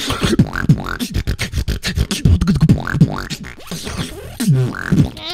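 Beatboxing into a microphone: a fast run of percussive mouth clicks and hits mixed with short rising vocal sweeps.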